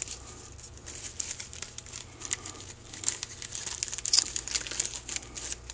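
Clear plastic parts bag from a carburetor rebuild kit crinkling and crackling in the hands as the check balls are got out of it, with a quick cluster of crackles about four seconds in.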